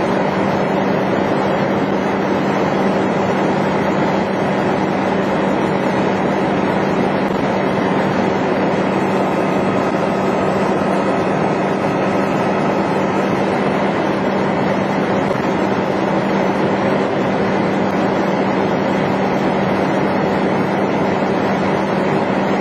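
Utility bucket truck's engine running steadily: a constant mechanical drone with a steady low hum.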